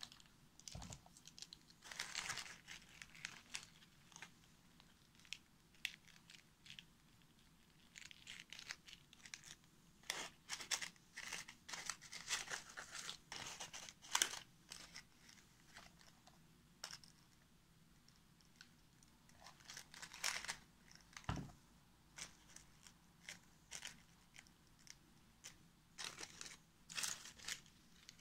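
Dry, papery physalis husks and dried leaves faintly crinkling and rustling in irregular short bursts as they are handled and pressed into place, with one soft knock about two-thirds of the way through.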